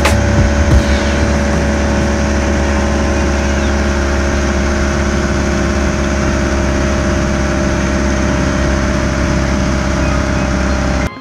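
Cabin noise of a 1969 Land Rover Santana driving at a steady speed: a loud, even engine drone with road noise. It cuts off abruptly near the end.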